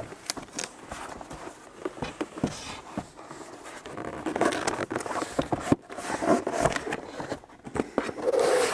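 Cardboard boxes being handled: a small white box lifted out of a larger shipping carton and its flaps pulled open, with irregular scraping, rubbing and light taps of cardboard on cardboard.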